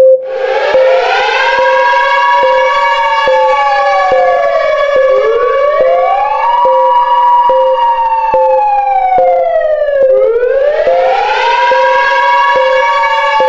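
Civil-defence air-raid siren wailing: each cycle rises over about a second and a half, holds, then slowly falls, repeating about every five seconds, three rises in all. Under it runs a steady pulsing tone with regular clicks.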